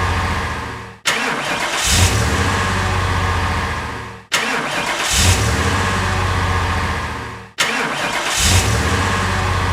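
Car engine sound effect played in a loop: about every three seconds the engine catches with a sudden burst, runs steadily, fades away and cuts off abruptly, three times over.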